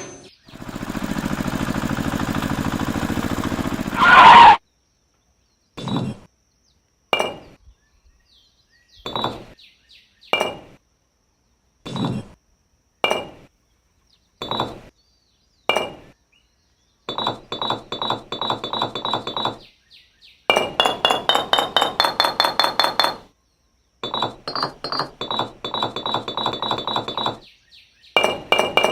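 Small hard objects clinking and tapping with a short ring: single clinks about a second apart, then fast runs of clinks. A steady hiss comes first for about four seconds and then stops.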